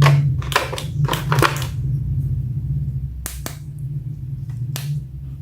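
Plastic action figures being handled: a few short crinkly rustles in the first two seconds, then a few sharp plastic clicks, over a steady low hum.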